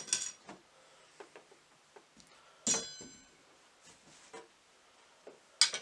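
Backpack sprayer parts being handled while unboxed: light knocks and rustling, with one sharp metallic clink that rings briefly about three seconds in as the metal spray wand comes out of the box. A couple of sharper knocks come near the end.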